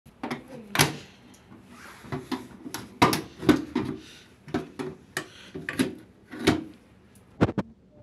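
Irregular sharp plastic clicks and knocks, about a dozen, as a screwdriver pries the plastic bottom kick panel off a front-loading washing machine and its clips come loose.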